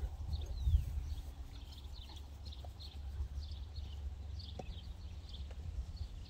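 Outdoor ambience of small birds chirping again and again over a steady low rumble.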